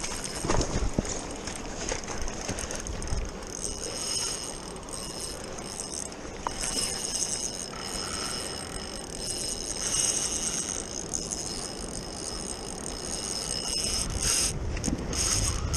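Spinning reel being cranked to retrieve line, its gears whirring and clicking, over the steady rush of the river.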